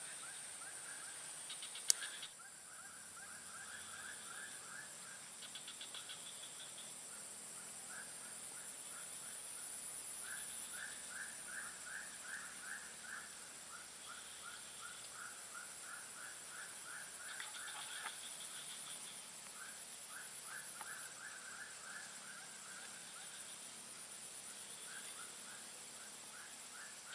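Faint swamp ambience: a steady high insect drone with many short, rapid chirping trills from small animals repeating throughout. A single sharp click about two seconds in.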